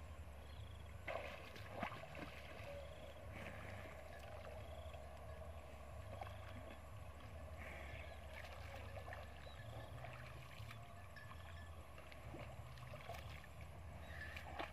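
Faint water lapping and sloshing around water buffalo wallowing in a muddy pond, over a low steady rumble, with a couple of soft knocks about one and two seconds in and a few faint short high chirps.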